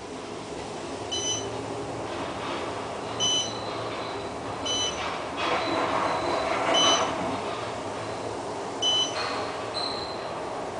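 Otis elevator cab in motion: a steady running hum, swelling for a couple of seconds midway. Over it are short, high electronic beeps every second or two, five in all, with a different single tone near the end.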